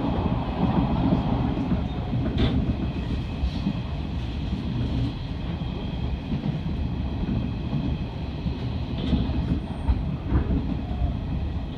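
Hanshin 9000 series electric train running at speed, heard from inside the front car: a steady rumble of wheels on rail, with a few sharp clicks over rail joints and a faint steady high whine.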